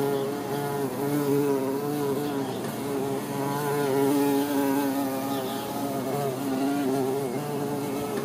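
A continuous buzzing hum with a wavering pitch.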